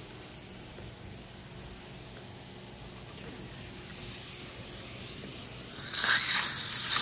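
Dental suction hissing steadily, growing louder about six seconds in as the suction tip goes into the patient's mouth.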